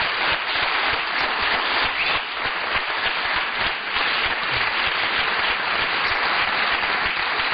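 Studio audience applauding, a steady, dense clapping that holds at an even level throughout.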